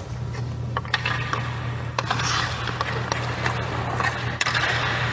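Ice hockey skate blades scraping and carving on the ice through powerful crossover strides, with a few sharp clicks. A steady low hum runs underneath.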